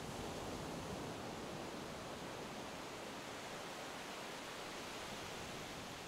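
Soft, steady wash of gentle ocean waves from a background ambience track, swelling slightly about a second in.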